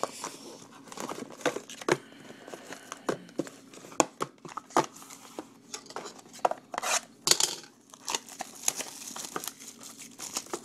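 Cardboard trading-card mini-boxes being handled and pulled out of their larger box: a run of light taps, clicks and scraping rustles, with a longer rustle about seven seconds in.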